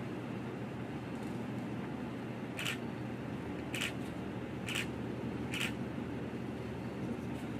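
Steady low hum of an indoor enclosure's ventilation, with four short sharp clicks about a second apart in the middle.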